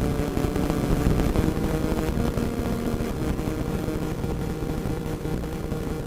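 Radio static: a steady rushing noise, heaviest in the low end, full of rapid crackles.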